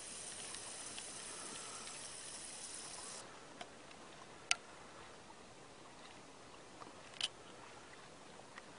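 Faint water sounds from kayak paddling: a rushing hiss of water for the first three seconds or so, then quieter lapping with three sharp clicks or knocks.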